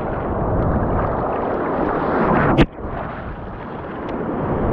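Shallow surf washing and splashing close to the microphone, a steady rushing noise. One sharp knock about two and a half seconds in, after which the water sound briefly drops in level.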